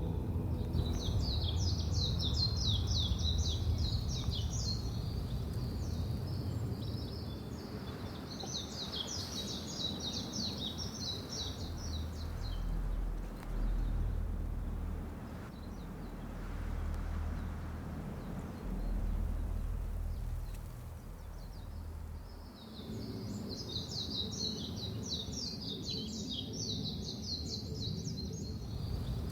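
Outdoor ambience with a songbird singing rapid chirping trills in three bouts of a few seconds each, over a steady low rumble like wind.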